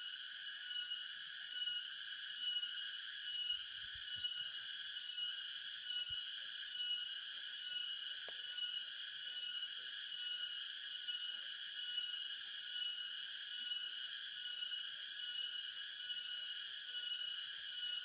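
Steady chorus of insects: a shrill, high buzzing that pulses about twice a second.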